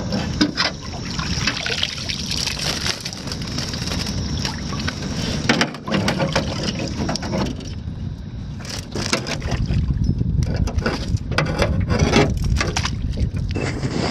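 A collapsible crab trap hauled dripping out of the water into a small boat and handled, with water splashing, wind on the microphone and a run of knocks and rattles from the trap's frame against the boat.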